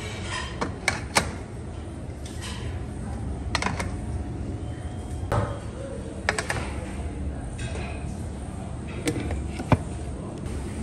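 Stainless steel steamer tiers and lids clinking and knocking as they are handled and set in place over a steamer of manti: about ten sharp knocks spread unevenly, the loudest about a second in and near the end, over a steady low kitchen hum.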